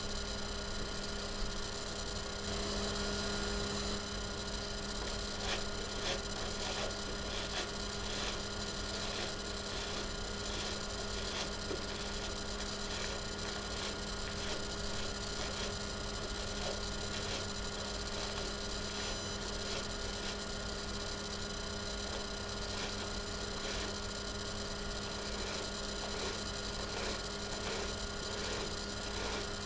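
Steady electrical hum with several fixed tones held throughout. Faint, irregularly repeated soft swishes of a Tangle Teezer detangling brush pulled through hair sit under it.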